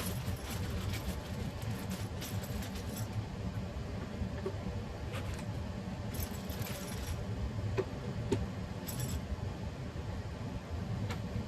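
Small metal hardware, such as hinges and screws for a furniture door, clinking and rattling as it is handled, with scattered light clicks over a steady low hum.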